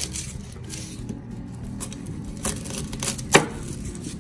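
Kitchen handling sounds while a head of garlic is prepared and set on the meat: a few sharp clicks and knocks, the loudest a little over three seconds in.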